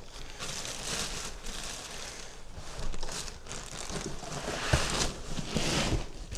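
Cardboard box and packing material rustling and scraping irregularly as a heavy 3D printer is worked loose from its box, with a dull knock about two-thirds of the way in.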